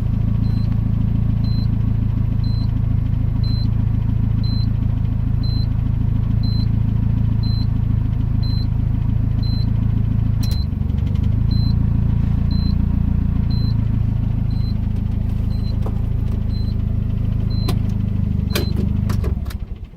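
Nissan CA18DET turbocharged four-cylinder idling steadily while a short high beep repeats about once a second, with the turbo timer running. A few clicks near the end, then the engine shuts off.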